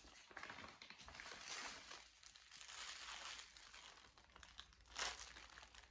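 Faint rustling and crinkling of a woven plastic shopping bag and a plastic-wrapped biscuit pack being handled, with a louder rustle about five seconds in.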